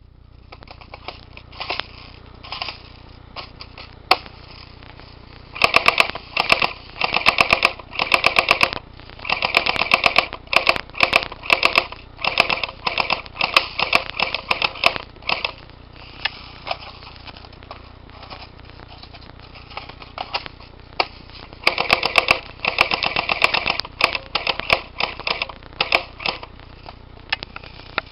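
Well P90 airsoft electric gun shooting: a few single shots, then rapid full-auto bursts of sharp clicks starting about six seconds in and again about twenty-two seconds in.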